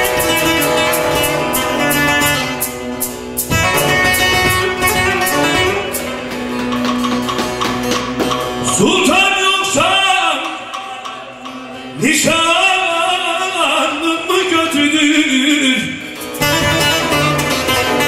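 Amplified electric bağlama (long-necked Turkish saz) played in a fast, plucked instrumental passage over a steady drone. From about nine seconds in a man sings a Turkish folk song over it, with a short break around eleven seconds. The saz plays alone again near the end.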